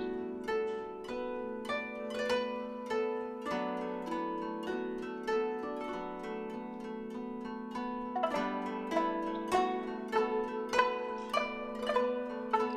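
Background music: a melody of quick plucked notes over sustained chords.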